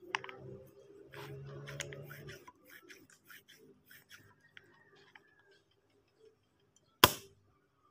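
A homemade PVC air gun being handled: a run of small clicks and plastic scrapes over the first five seconds. About seven seconds in comes one sharp, loud shot, the gun being fired.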